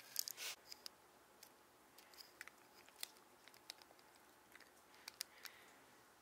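Faint, scattered taps and scratches of a pen writing on a card and paper being handled on a wooden desk, with a brief louder rustle near the start.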